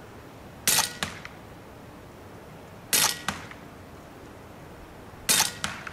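Huben K1 6.35 mm semi-automatic PCP air rifle fired three times, about two and a half seconds apart. Each shot is a sharp crack, followed a moment later by a fainter click.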